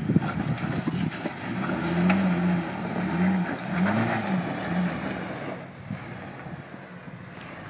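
Jeep Wrangler's engine working in short throttle blips as it crawls over boulders, its pitch rising and falling between about two and five seconds in, over rough scraping and knocking noise. The engine sound fades near the end.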